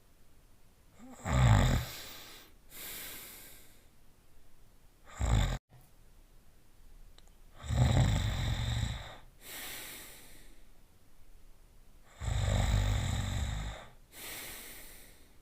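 Cartoon dog character snoring: four loud, rough snores, each followed by a softer breathy out-breath. The second snore, about five seconds in, is short and cuts off abruptly.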